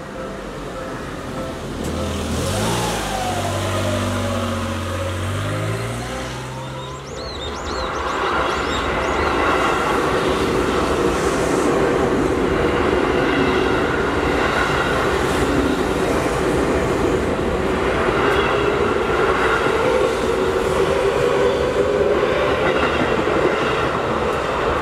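Seibu Ikebukuro Line electric trains passing a level crossing. A few seconds in, a train's motors whine in tones that step up and down in pitch. From about eight seconds, cars roll past in a long steady rumble, with brief high wheel squeal just before.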